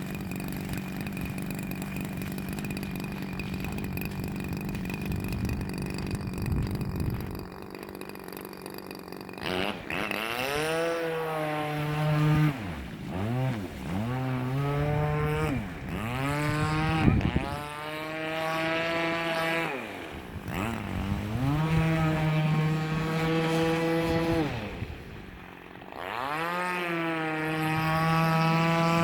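Warrior 26cc RC boat's small two-stroke gas engine, running at a steady idle for about the first nine seconds, then revving up and down again and again, its pitch climbing and dropping several times.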